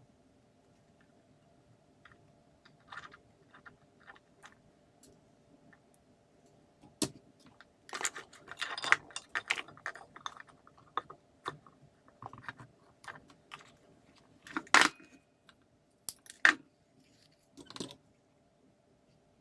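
Irregular clicks, rattles and clatter of small plastic and metal parts being handled during a work light repair, busiest in the middle with a few sharp knocks near the end, over a faint steady hum.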